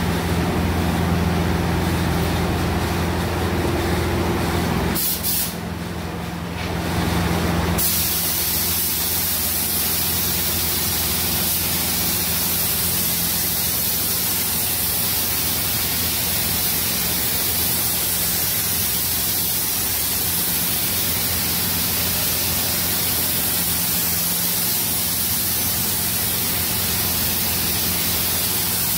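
Gravity-feed automotive spray gun hissing steadily as paint is sprayed onto a car's panels, starting about eight seconds in after a short lull. A steady low hum runs underneath.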